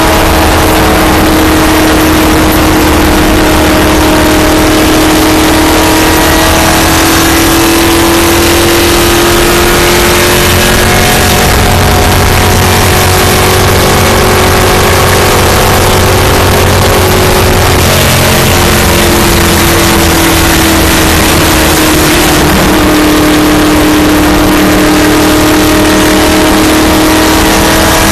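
Stock car's V8 engine running flat out at high revs, heard very loud from inside the car, with wind and road rush. The engine note sags slightly and climbs back twice.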